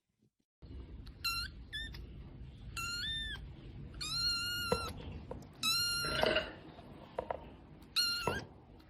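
A cat meowing repeatedly, about six short high-pitched meows, some rising at the end, over a steady low background hum.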